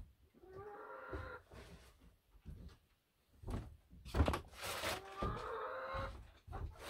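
Knocks and thumps of things being handled and moved about, loudest about four seconds in. Two drawn-out animal calls sound in the background, one about half a second in and one near the end.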